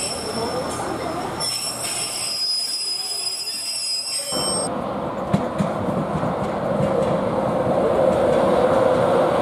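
Northern Pacer railbus moving along the tracks with steady high-pitched wheel squeal over its rumble. About four seconds in, this gives way to an InterCity 225 express with Mark 4 coaches approaching and running in, its rumble growing steadily louder.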